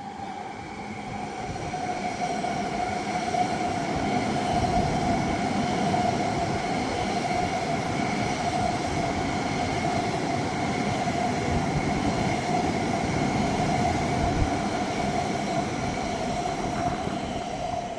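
E7 series Shinkansen passing at speed: a steady rumble that builds over the first few seconds, with a strong, sustained high whine riding over it and sinking slightly in pitch. The sound cuts off suddenly at the end. The uploader takes the whine for an abnormal noise from the train, or else flange squeal.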